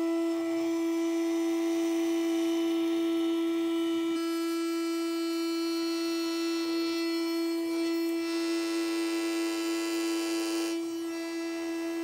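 CNC router spindle at 20,000 rpm with an end mill taking a light finishing pass along the full depth of an aluminium part's wall in climb milling: a steady high-pitched hum over a cutting hiss. The hiss grows louder about eight seconds in and eases off shortly before the end.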